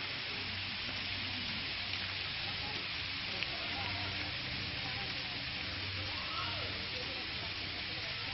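Steady, even hiss of outdoor background noise over a low hum, with no distinct events.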